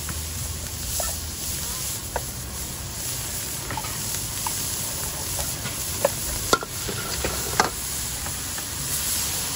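Minced pork sizzling in a large steel wok while a metal wok spatula stirs it, scraping and knocking against the pan. The sizzle is a steady hiss; the spatula knocks come scattered through, the sharpest a few times in the second half.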